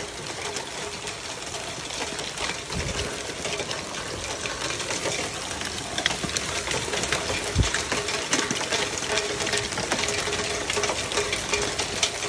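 Hail and rain coming down: a dense, rapid clatter of small ticks as hailstones and drops hit the ground and paving, with a faint steady hum underneath and two dull low thumps about 3 and 7.5 seconds in.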